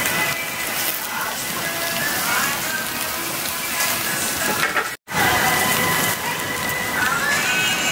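Whole squid and prawns sizzling over glowing charcoal on a small grill: a steady hissing crackle, broken by a brief gap about five seconds in.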